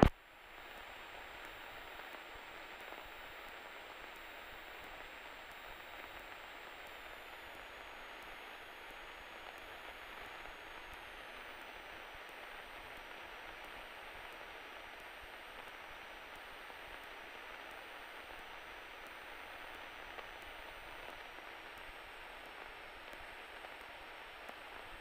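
Steady hiss on the aircraft's radio and intercom audio feed between radio calls. A faint high electrical whine steps down in pitch a few times.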